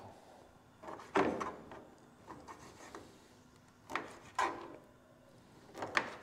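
Short knocks and scrapes from handling and cutting raw flathead fillets on a work surface. The loudest come about a second in, twice around four seconds in, and near the end.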